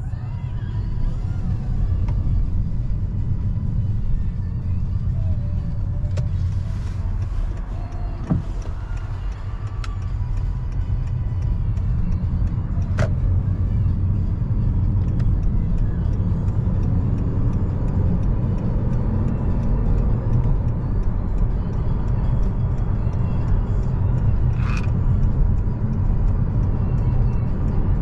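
Steady low road and engine rumble inside a Honda Accord's cabin while driving at speed, with a few faint clicks now and then.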